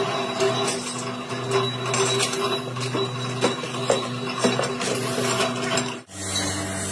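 Workshop machinery running with a steady hum and irregular mechanical clicks and clanks. The sound cuts out about six seconds in and is followed by a different steady hum.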